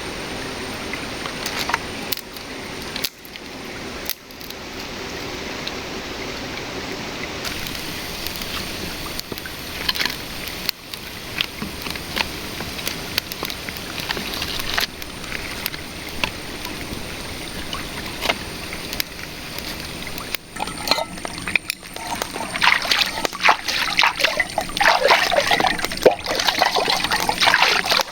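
Shallow river water running and trickling, with irregular sloshing and splashing that grows louder over the last six seconds or so.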